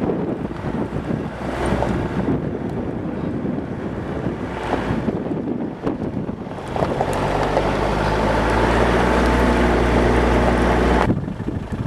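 Land Rover Discovery engine running as it climbs a dirt mountain track, heard from inside the vehicle with wind buffeting the microphone. The engine drone grows louder and steadier about two-thirds of the way through, then cuts off abruptly near the end.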